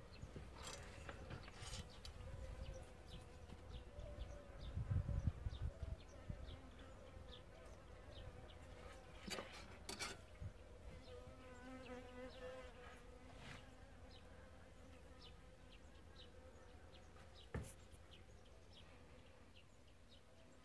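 Faint, wavering insect buzz, with short high chirps scattered through it and a brief low rumble about five seconds in.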